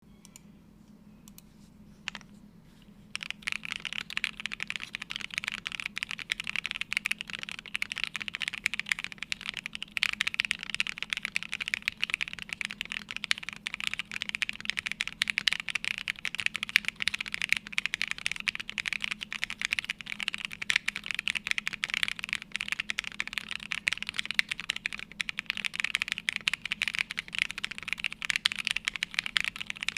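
Fast, continuous typing on a plateless mechanical keyboard with lubed Gateron Box Ink Pink linear switches and CRP Jipink keycaps. A single keystroke comes about two seconds in, and steady typing starts about a second later.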